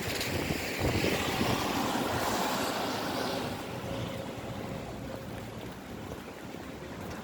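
A vehicle passing on a wet road: tyre hiss swells, peaks about two seconds in and fades, over the steady hiss of rain.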